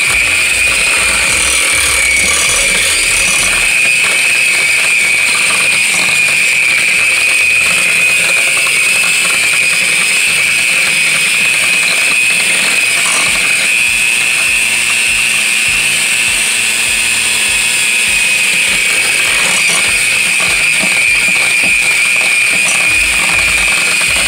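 Small electric hand mixer running steadily with a high-pitched motor whine, its beaters mixing butter, sugar and egg in a glass bowl.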